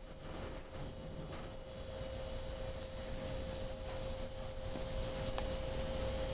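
A steady high-pitched tone of unclear origin, like a whine, holds one pitch throughout. A few faint clicks, the clearest about five seconds in, fit metal wrenches being handled.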